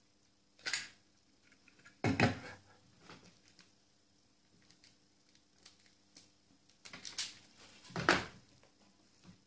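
Metal hand tools working on wiring: sharp clicks and rattles of wire strippers and pliers, loudest about two seconds in and again in a cluster near the end.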